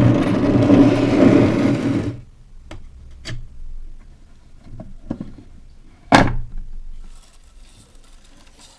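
A loud rumbling noise for about the first two seconds, then a few light clicks and one sharp knock about six seconds in as an old wooden box is set down on a wooden table. Near the end, jute twine rubs and rasps as hands untie it.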